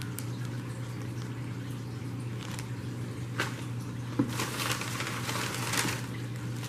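Crinkling of a plastic plant bag and tissue packing paper as a bagged plant is pulled from a box, mostly in the second half, with a few soft clicks before it. A steady low hum runs underneath.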